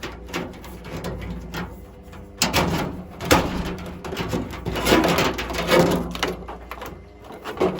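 Washing machine being worked on by hand: irregular clunks, rattles and scrapes of its panels and parts, over a low steady hum.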